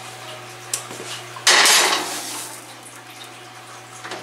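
CorningWare baking dish being set onto and slid along an oven's wire rack: a light click, then a short clatter and scrape about one and a half seconds in that fades quickly.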